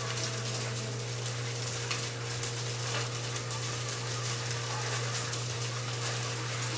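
Electric fan running fast: a steady hiss with a low, even hum underneath.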